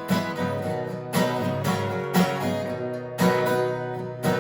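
Acoustic guitar strumming chords, with a strong strum about once a second as the music plays on without singing.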